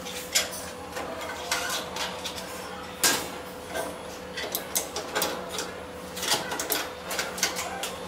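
Irregular metal clicks and clatter as screws and a lock hook are handled and fitted by hand inside a sheet-steel locker compartment, with sharp knocks just after the start and about three seconds in.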